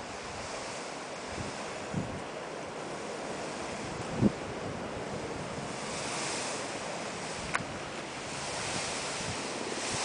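Steady wind rushing over the microphone outdoors, with a few short low buffeting thumps and one sharp click a little after halfway.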